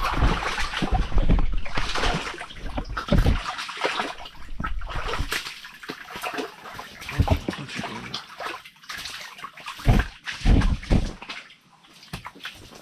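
A cutthroat trout flopping and slapping on wet ice beside an ice-fishing hole, with water splashing; irregular thumps, heaviest about two to three seconds in and again near the end.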